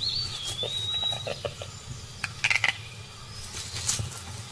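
A bird's single whistled note, dipping slightly and held for about a second, followed by scattered crackles and rustles in dry leaf litter, with a denser patch of rustling about halfway through.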